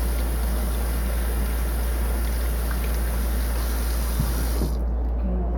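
Kitchen tap running in a steady stream of water, then turned off near the end, with a couple of light knocks just before it stops.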